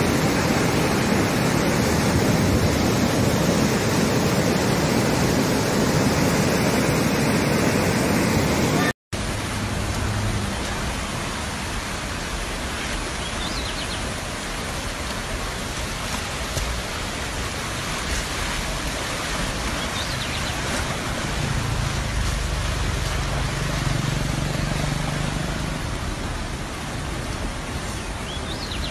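Muddy flash-flood water rushing, a loud steady wash of noise. It cuts off about nine seconds in and gives way to a quieter steady rush of brown floodwater.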